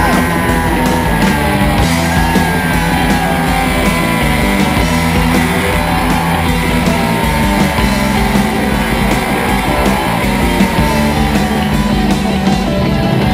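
Rock music with electric guitar, loud and steady.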